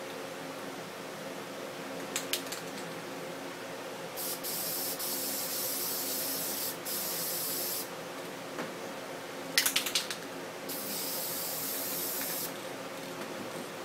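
Aerosol spray paint can spraying in two long hissing spells, the first broken by short pauses. A few quick sharp clicks come shortly before each spell.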